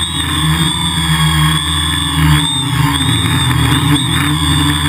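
Multirotor drone's electric motors and propellers in flight, heard from a camera mounted on the drone: a loud, steady whine with a low hum beneath, its pitch wavering a little as the drone turns.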